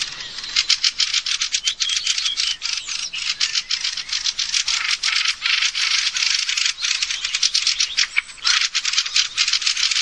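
Fieldfares, many at once, giving harsh chattering alarm calls in a fast, unbroken rattle: mobbing calls aimed at a raven near their nests.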